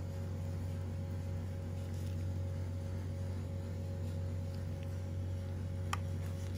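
A steady low hum, with one short click near the end.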